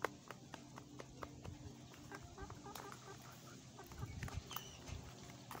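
Irregular light clicks of a metal fork tapping against a bowl while mashing soft food such as avocado and banana by hand.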